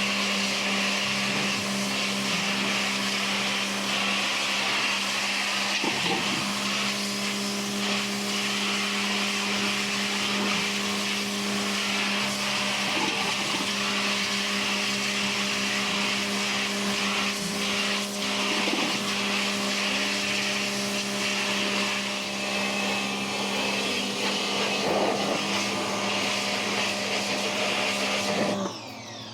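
Pressure washer running steadily, a motor hum under the hiss of the spray, as it blasts grime off a washing machine tub; it cuts off near the end.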